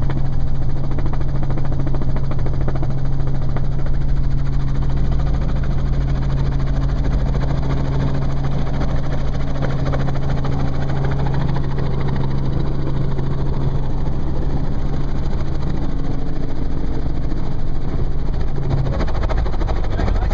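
Cabin noise of a small piston-engined Robinson helicopter running: a loud, steady engine and rotor drone with a strong low hum, which drops away near the end.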